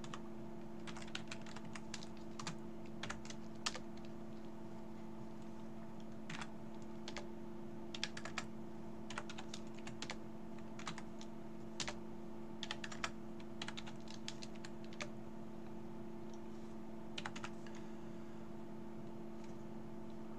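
Computer keyboard typing in irregular bursts of keystrokes with short pauses between them, over a steady low electrical hum.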